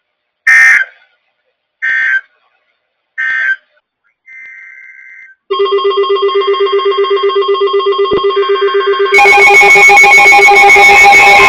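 Three short screeching bursts of NOAA Weather Radio SAME digital alert code, then weather alert radios going off: a pulsing alarm tone starts about five seconds in, and a second, louder alarm joins about nine seconds in.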